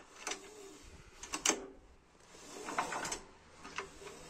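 Recoil starter of a Denzel generator's 420 cc engine pulled several times with the ignition off, turning the engine over. The rope rasps and the starter clicks in groups about a second apart. The engine turns freely after reassembly.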